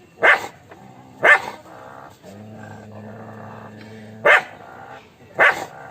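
Dog barking: four loud single barks, two about a second apart, then a pause of about three seconds, then two more about a second apart.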